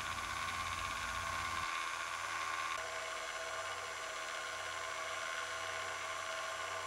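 Escalera electric stair-climbing hand truck's motor and gearbox running, with its chain drive turning: a steady mechanical whir made up of several steady tones. The low part of the sound drops away about a second and a half in, and the tone shifts slightly a second later.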